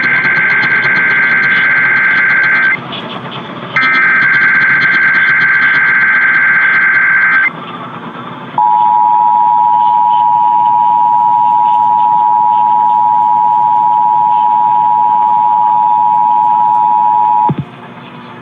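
Emergency Alert System test tones over AM radio with static: the screeching SAME header data bursts, one ending about three seconds in and a second lasting a few seconds, then after a short gap the steady two-tone EAS attention signal for about nine seconds, cutting off near the end.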